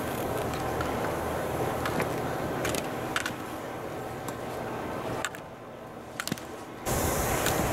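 Skis carving and scraping over hard-packed snow with wind rushing on the microphone, and a few sharp clacks as slalom gate poles are struck. The noise drops for about a second and a half near the end, then comes back.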